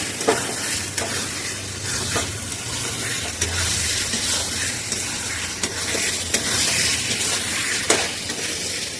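Chicken pieces frying and sizzling in hot masala while being stirred with a ladle, which scrapes and knocks against the pan again and again over a steady hiss.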